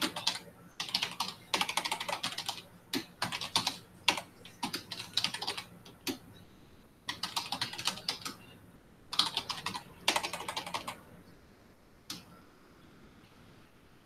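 Typing on a computer keyboard: quick runs of keystrokes in bursts of a second or two, separated by short pauses, dwindling to a few single clicks over the last few seconds.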